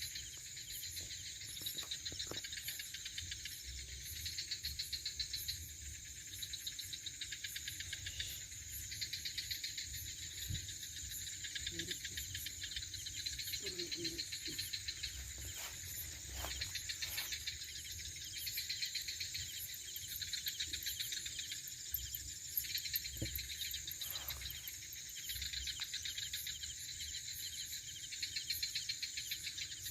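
Night insects chirping in a steady, rapidly pulsing chorus, with a few faint knocks.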